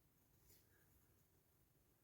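Near silence: faint room tone, with one faint short tick about half a second in.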